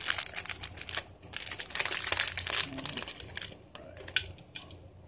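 A crinkly plastic blind-bag wrapper rustling as it is handled and opened by hand, in bursts that are loudest in the first half, then quieter rustling with a few sharp clicks.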